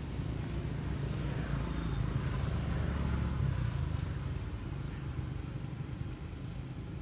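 Low engine rumble of a passing motor vehicle, swelling about a second in and fading after about four seconds.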